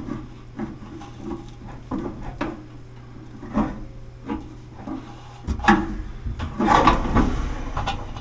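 Knocks, clicks and scrapes of a GE dryer's drum and drive belt being handled inside the cabinet; about two thirds of the way in it turns to louder, continuous rubbing and scraping as the drum is lifted to ease the belt tension.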